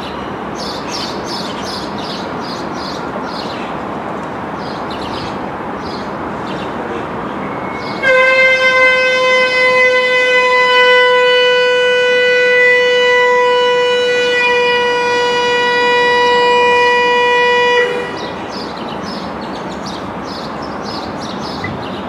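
Locomotive air horn sounding one long steady chord of several notes for about ten seconds. It starts abruptly about eight seconds in and stops just as suddenly. Before and after it there is a steady hum of background noise with repeated high chirps.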